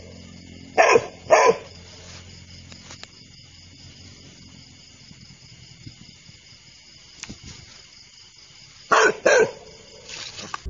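A dog barking in short pairs: two barks about a second in, then two more about nine seconds in.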